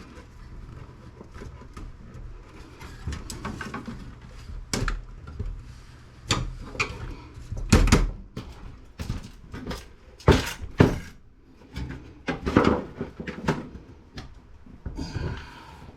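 Irregular metallic clunks and knocks of a desktop computer's steel case and power supply being wrenched and pried at while it is stuck, with the heaviest knocks about eight seconds in and again around ten to eleven seconds.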